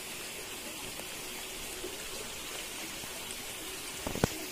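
Steady rushing of a small river flowing, with a few sharp knocks near the end.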